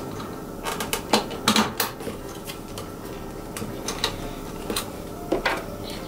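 Sharp handling clicks and knocks of metal cable terminals and a red plastic terminal cover being fitted at a battery cable connection: a quick cluster of clicks about a second in, then scattered lighter ticks, over a steady background hum.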